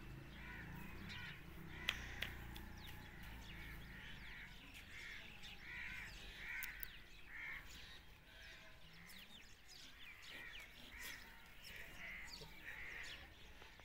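Birds calling faintly in the background, runs of short repeated calls about two a second, with a sharp click about two seconds in.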